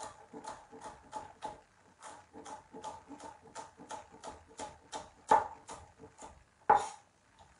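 Chef's knife dicing yellow bell pepper on a bamboo chopping board: quick, regular chops about four a second, two of them sharper and louder late on. A dog makes faint noises behind the chopping.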